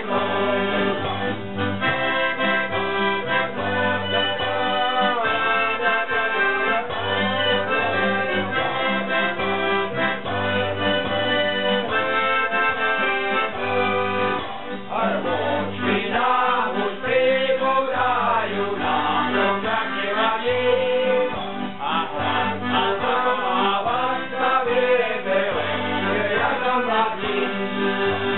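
Live folk band led by an accordion, with plucked double bass notes underneath and acoustic guitar. Men's voices join in singing about halfway through.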